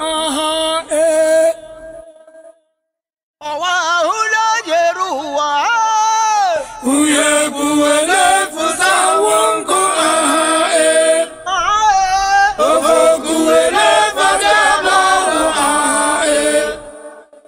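A song with singing voices over music, breaking off into silence for about a second early on and cutting off again just before the end.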